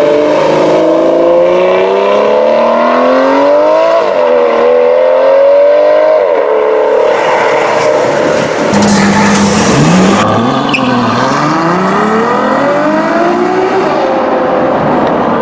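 Aston Martin Vanquish V12 accelerating hard, its pitch rising and dropping at two upshifts about four and six seconds in. Then a second car, a Ferrari FF with its V12, accelerating away with the pitch climbing again.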